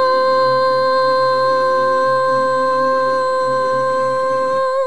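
A woman's singing voice holding one long, steady high note, the final note of the song, over a soft instrumental backing track; voice and backing stop together near the end.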